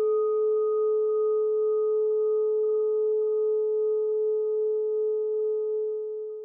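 A single bell-like chime tone, struck just before and left to ring, holding steady with a few fainter higher overtones and then fading near the end.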